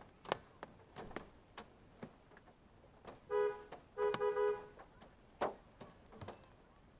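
Raindrops ticking irregularly on a parked car. About three seconds in, a two-tone car horn sounds: one short honk, then a second honk broken into quick pulses.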